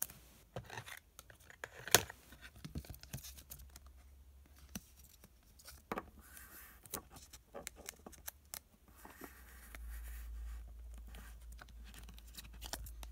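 Trading cards being handled: a run of irregular small clicks, scrapes and rustles as chrome cards and packaging are shuffled and slid against each other, with one sharper click about two seconds in.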